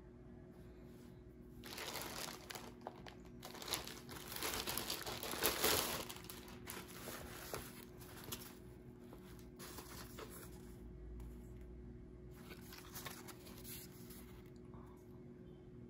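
Clear plastic poly bag crinkling as a new bag is unwrapped from it, dense and loudest in the first six seconds or so, followed by fainter, scattered rustles as the bag is handled. A faint steady hum runs underneath.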